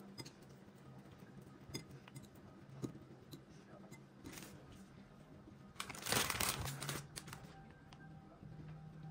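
Soft taps and clicks of courgette slices being laid by hand in a tart pan. About six seconds in comes a loud rustle lasting about a second as grated cheese is poured out and scattered over them.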